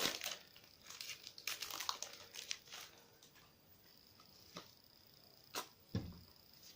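Foil wrapper of a Pokémon TCG booster pack crinkling and tearing as it is opened, in irregular bursts over the first few seconds. A few soft clicks and a dull thump follow near the end.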